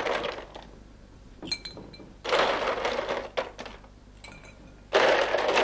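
Ice cubes going into a glass bowl of rum punch: a few sharp clinks with a short glassy ring, and two louder stretches of about a second of rattling ice and swishing liquid.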